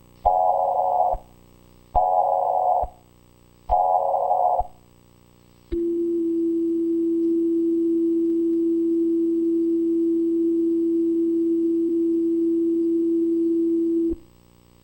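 Emergency Alert System broadcast tones: three short digital data bursts, each about a second long and under two seconds apart, then a steady low tone held for about eight seconds that cuts off suddenly.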